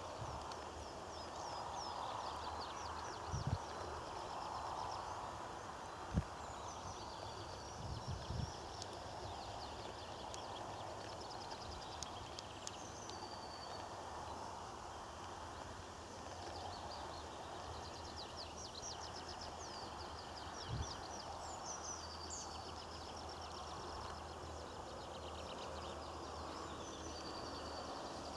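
Small birds chirping and singing repeatedly over a steady open-air background noise, with a few short low thumps.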